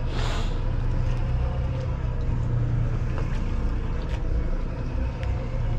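Bow-mounted Minn Kota electric trolling motor running with a steady low hum as the kayak moves slowly along, with a brief hiss of noise just after the start.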